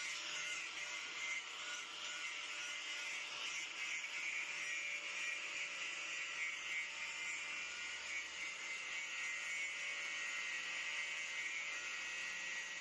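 A steady machine whir with hiss and a few faint high steady tones, unchanging throughout.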